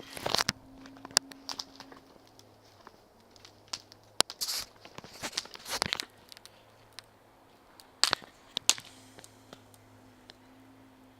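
Campfire crackling, with irregular sharp pops and short bursts of crackle.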